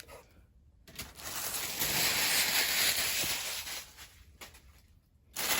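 Packing paper rustling and crinkling as toy pieces are unwrapped by hand, in one long spell starting about a second in and again near the end.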